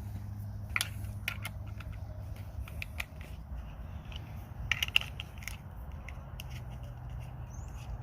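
Scattered light clicks and scrapes of a mini chainsaw's bar and chain being handled and taken apart to clear jammed vine debris from the chain track, with a small flurry of clicks about five seconds in, over a steady low hum.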